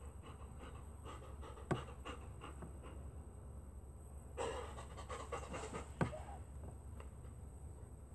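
Bernese mountain dog panting steadily and softly, with a couple of short knocks and a brief rustle partway through.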